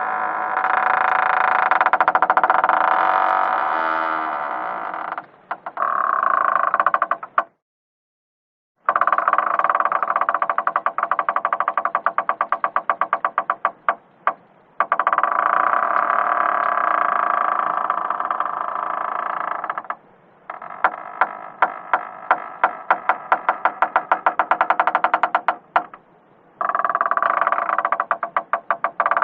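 Creaking door hinges: a run of long, drawn-out creaks made of rapid stuttering clicks, several separate creaks with short breaks between them.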